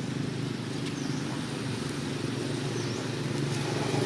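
Steady low engine hum from a motor running, growing a little louder toward the end.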